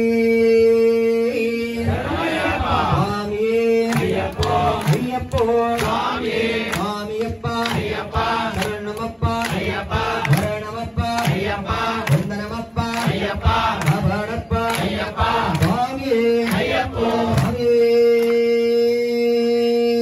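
A group of male Ayyappa devotees chanting in unison: a long held call at the start and again near the end, with rhythmic group chanting in between. Sharp claps or strikes run through the chanting.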